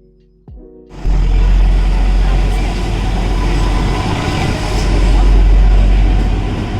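Soft background music stops about a second in, and a loud, steady low rumble with noise takes over: a moving narrow-gauge toy train heard from on board.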